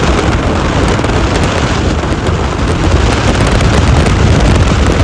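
A boat running at speed, its motor's steady low drone mixed with heavy wind rushing over the microphone.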